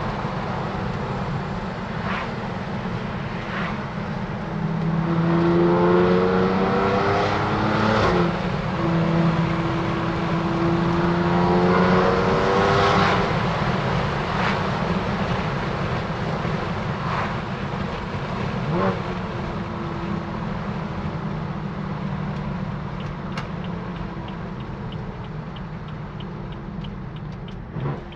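BMW F80 M3's twin-turbo straight-six, through a cat-deleted M Performance exhaust, accelerating hard. The revs climb, break at an upshift about 8 seconds in, and climb again until about 13 seconds in. The engine then settles into a steadier, slowly easing drone, with a few short sharp pops or clicks along the way.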